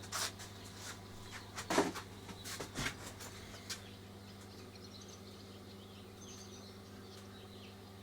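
A steady low electrical hum throughout, with several sharp clicks and knocks in the first four seconds and faint, short, high chirps from about halfway on.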